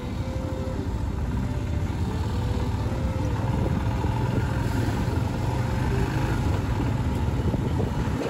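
Royal Enfield Himalayan's single-cylinder engine running steadily while the motorcycle is ridden along the road, with wind rumbling over the handlebar-mounted microphone.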